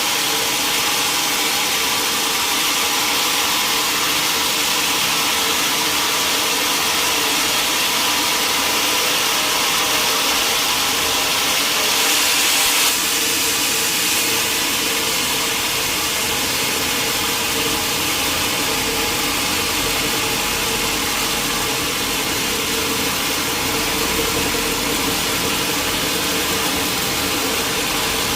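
Sawmill machinery running steadily: a continuous mechanical drone with a steady hum. About twelve seconds in, a brighter hiss swells briefly and cuts off sharply.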